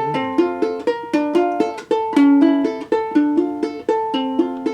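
Solo ukulele played between sung lines: a steady, rhythmic fingerpicked pattern of plucked notes.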